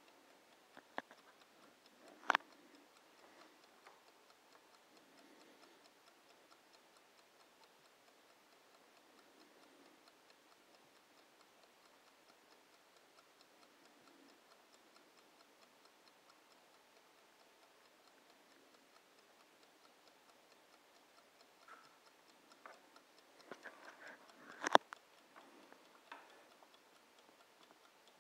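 Bodum mechanical kitchen timer ticking steadily and faintly. A few sharp knocks break in, one about two seconds in and a louder one near the end.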